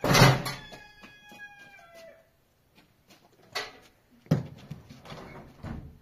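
A loud knock, then a rooster crowing once in a long held call that trails off about two seconds in. A few separate knocks and thumps follow.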